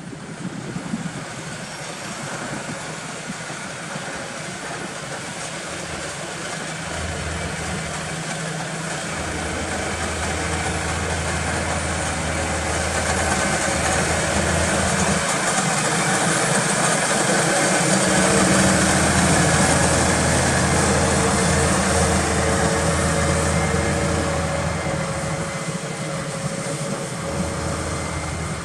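Claas Axion 830 tractor's six-cylinder diesel engine running steadily under load while pulling a five-furrow plough. The sound grows louder towards a peak about two-thirds of the way through, then eases off a little.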